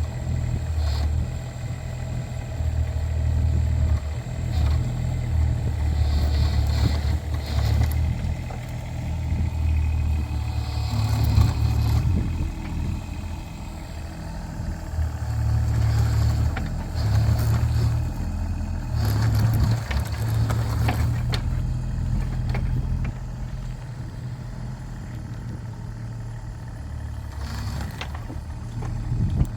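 Kubota mini excavator's diesel engine running, its load swelling and easing in stretches, with a few brief clatters; it settles to a steadier, quieter run for the last several seconds.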